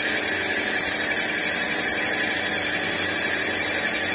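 CNC lathe turning a gunmetal (bronze) bush, the tool insert cutting under coolant spray: a loud, steady high-pitched whine over hiss.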